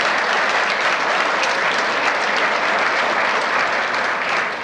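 Audience clapping, a steady dense round of applause.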